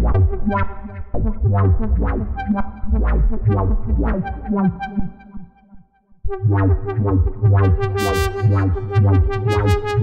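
Cherry Audio Mercury-6 software synthesizer, an emulation of the Roland Jupiter-6, playing its 'Comical Filters' preset: a run of short pitched notes over deep bass. About five and a half seconds in it fades to a short gap, then resumes with a held tone under the notes and brighter high notes.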